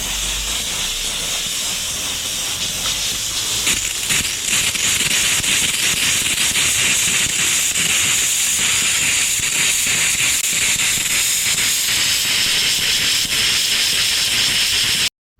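Compressed air hissing out through a sprinkler irrigation line as it is blown out, pushing the last water from the heads. The hiss gets louder about four seconds in and cuts off suddenly near the end.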